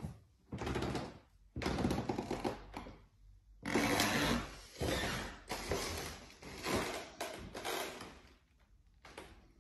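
Rustling and knocking handling noise from a handheld phone carried while walking, in irregular stretches of about a second each with short gaps.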